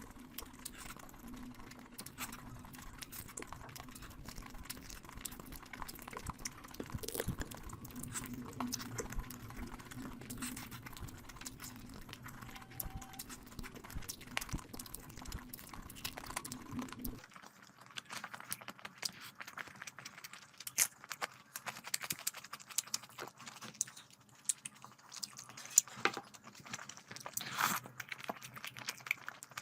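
Close-miked eating sounds: chewing and mouth smacking with small wet clicks, typical of someone eating rice and curry. A low background hum drops out suddenly about 17 seconds in, after which the clicks and smacks are sharper.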